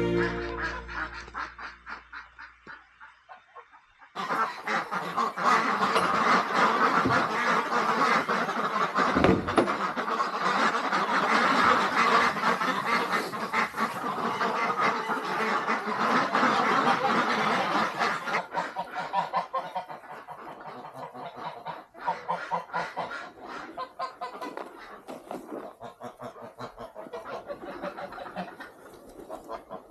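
A flock of domestic ducks and geese calling all at once, a dense clamour of quacks and honks. It starts suddenly about four seconds in, after some fainter calls, and thins out in the second half.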